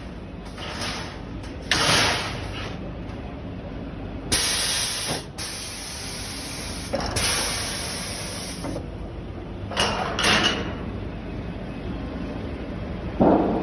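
Vicon TDX duct brake folding a galvanised sheet-metal panel: a run of hissing bursts, each one to two seconds long, and a short thump near the end.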